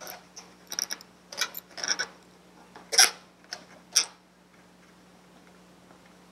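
Black Sharpie marker tip drawing on an inflated latex balloon: a run of short squeaks and ticks for about four seconds, the loudest two near the end of that run.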